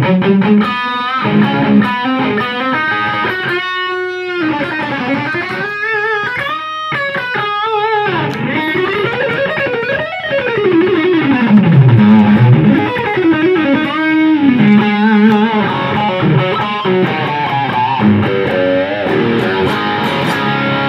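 Electric guitar played through an Idea Sound Product RAT-style distortion pedal, its high-gain control in use, giving a thick, distorted tone. Chords and single notes ring out, and about halfway through a note slides down the neck and back up.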